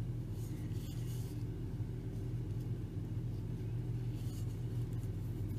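Steady low background hum, with faint soft rustles of yarn drawn over a crochet hook about half a second in and again near the end as a double crochet stitch is worked.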